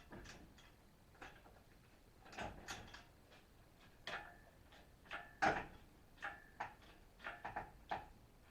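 Irregular metallic clanks and clicks from an engine-lifting chain and hoist, some leaving a brief ring; the loudest comes a little past halfway.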